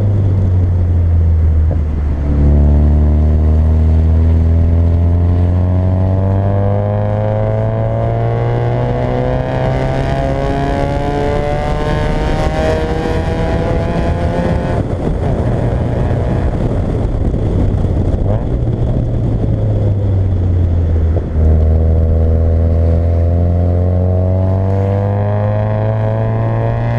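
Fiat Coupé 1.8 16v four-cylinder engine pulling hard under acceleration, its pitch climbing through long runs through the gears. There is a quick gear change about two seconds in, a lift-off about halfway, and another shift near the end before it climbs again.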